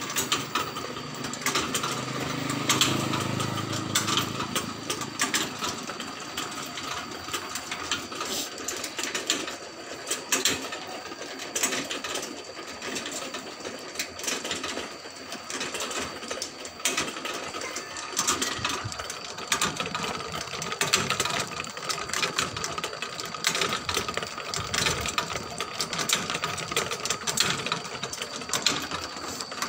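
Motor-driven rotisserie grill turning whole chickens on spits: its sprockets and drive chain clatter in a fast, uneven ticking over a steady faint whine.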